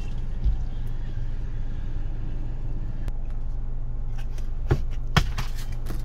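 Steady engine and road drone inside the cabin of a moving Tata Altroz, while the rain-sensing windscreen wipers sweep on their own across the wet glass. There is a soft thump about half a second in and two short knocks near the end.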